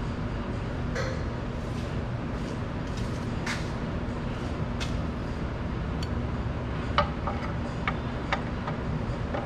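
Ratcheting wrench clicking in quick, uneven runs on an oil pan bolt during the last couple of seconds, over a steady low hum with a few scattered clicks before it.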